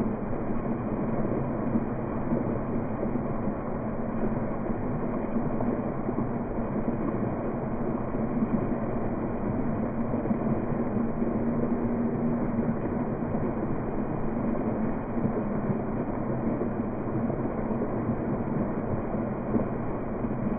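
Small park fountain running: thin jets of water from a sculpture splash steadily into a stone basin.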